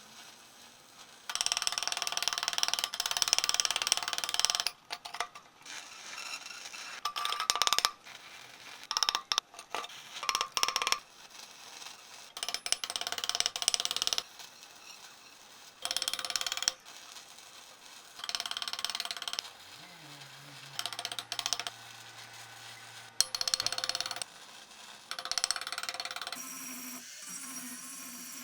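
Metalworking on square steel tubing: a series of short, noisy bursts, each one to three seconds, separated by quieter pauses.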